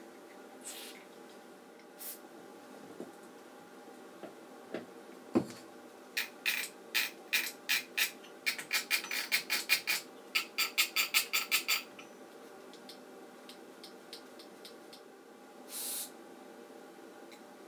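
Contact cleaner sprayed in short hisses into the switches of a Sansui 881 receiver. One of its switches is then clicked back and forth through its positions for several seconds to work the cleaner into the contacts, about two clicks a second speeding up to three or four a second. Another short spray comes near the end.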